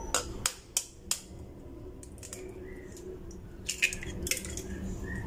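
Eggshell being tapped and cracked with a metal spoon: four sharp taps in the first second, then a few more cracks about four seconds in as the second egg's shell is broken open over the blender jug.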